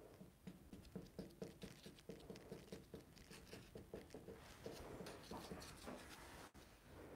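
Faint, quick soft taps and pats of fingertips pressing shortcrust pastry strips down onto the rim of an aluminium pie tin.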